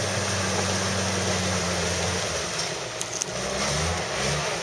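A vehicle engine running, steady for about two seconds and then rising and falling in pitch as it is revved, over a constant rushing noise, with a couple of sharp clicks about three seconds in.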